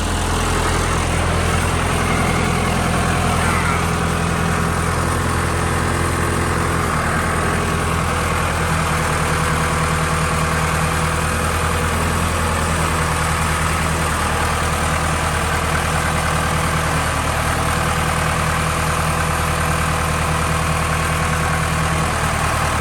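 A vehicle's engine running steadily at low, idle-like speed, pulling a strapped truck cab along slowly.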